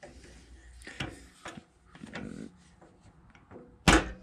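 Small metal clinks and knocks as a rocker arm and socket are worked in a bench press, then one loud, sharp crack near the end as the press forces the old trunnion bearing cap out of the LS rocker arm.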